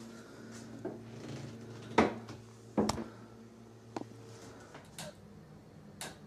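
A handful of sharp knocks and clacks at uneven intervals in a small room. The loudest comes about two seconds in and another just before three seconds, over a faint steady low hum.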